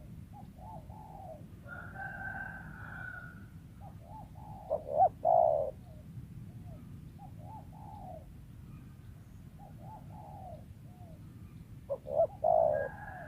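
Spotted doves cooing in repeated short phrases, some faint and distant, two loud close ones about five seconds in and near the end.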